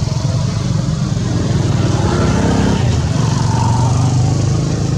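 A motor engine running steadily, a continuous low hum.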